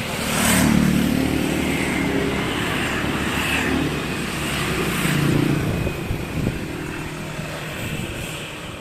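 Large diesel bus engine of a Mercedes-Benz ALS intercity coach running unevenly. It surges louder twice, then sinks lower toward the end, faltering as if about to stall, which the onlooker suspects is the fuel running out.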